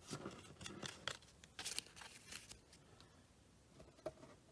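Faint scattered clicks and soft rustles of trading cards and pack wrappers being handled, busiest in the first couple of seconds with one more click near the end.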